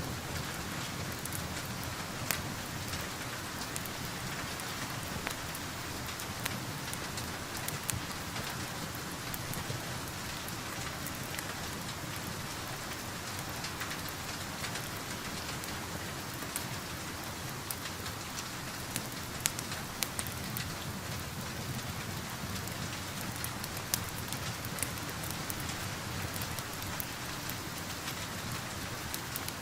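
Steady rain falling, a continuous even patter, with scattered sharp pops and clicks from a crackling wood fire.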